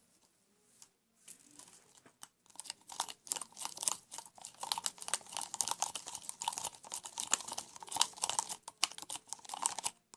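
Homemade glue-and-detergent slime being stirred with a spoon: after a quiet start, rapid, dense sticky clicking and smacking runs on to the end.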